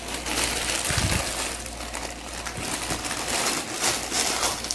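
Crinkling and rustling of plastic packaging, with small clicks and knocks as toy building bricks are handled.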